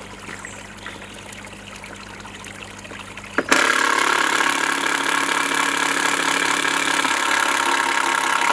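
Power drill-driver running steadily for about five seconds, backing a screw out of a decking board. It starts suddenly about three and a half seconds in, after a stretch of low handling noise.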